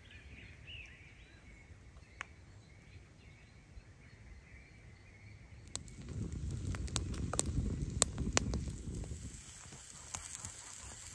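Faint outdoor quiet with a few faint high calls, then, a little over halfway, a wood campfire crackling with sharp pops over a low rumble. Steaks are cooking on a grill over the fire.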